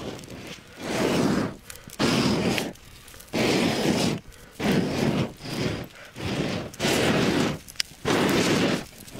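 A stick raking and stirring glowing wood embers in a campfire, with repeated scraping strokes about one a second and a sharp crackle near the end.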